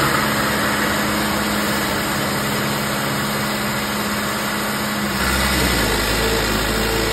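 Sonalika DI 750 tractor's diesel engine, fitted with a turbocharger, running at a steady speed; about five seconds in its note deepens, and a faint rising whistle comes in near the end.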